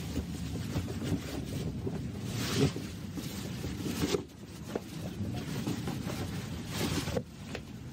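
Neoprene wetsuit rustling and rubbing as it is handled, turned over and smoothed out on a work table, in irregular soft swells of noise.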